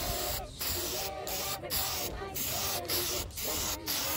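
Aerosol spray paint can spraying white paint, a hiss in a run of short bursts broken by brief gaps about every half second.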